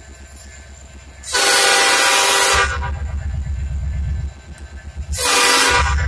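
Norfolk Southern SD70M-2 locomotive sounding its Nathan Airchime P5 horn: a chord blast of over a second starting about a second in, then a short blast near the end. Between and under the blasts is the low, pulsing throb of the approaching locomotive's diesel engine.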